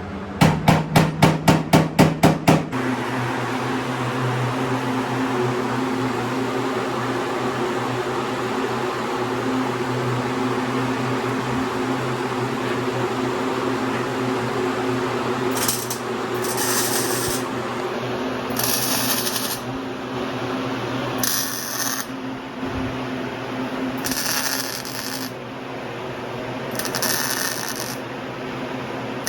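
A power grinder runs steadily, grinding baked-on paint, primer and oxidation off a car body down to bare metal. It starts after a quick run of about ten sharp knocks. In the second half, short hissing bursts come every two to three seconds.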